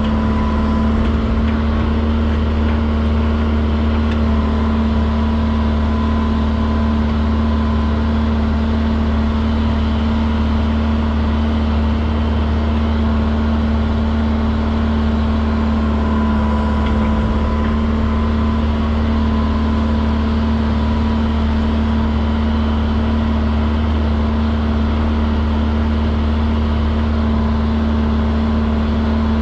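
Excavator's diesel engine running steadily under work, a constant low drone with a fixed tone above it and no breaks or big changes in speed.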